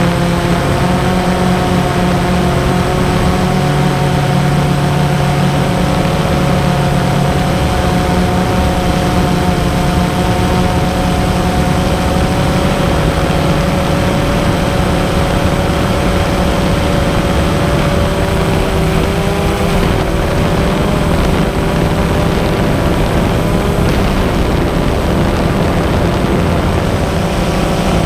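Camera drone's motors and propellers whirring steadily, a loud buzzing hum with several held pitches that drift slightly as the motors change speed.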